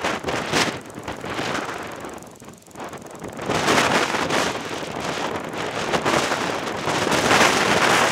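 Strong, gusty wind buffeting the microphone: loud rushing that eases about two and a half seconds in, then swells again and stays strong.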